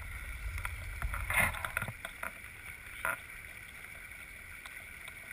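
Water sloshing and splashing as a camera is lifted from a creek pool through the surface: a muffled underwater rumble, a loud splash about a second and a half in and a shorter one about three seconds in, then the faint steady sound of the creek.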